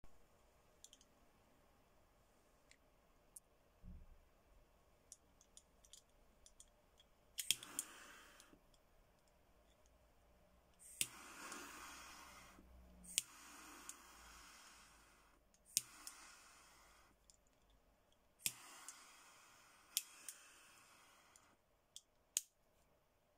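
Guevara twin-jet torch lighter lit four times, with the flame turned up to maximum. Each lighting starts with a sharp click of the ignition and flip lid. Then comes a steady hiss of the gas jets burning, for about one to five seconds, with a click as it is let go.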